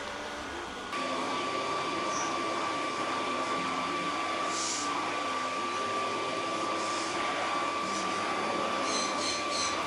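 Stick vacuum cleaner with a small brush attachment running over a dog's coat, a steady motor whine. About a second in it gets louder and the whine settles at a slightly lower pitch.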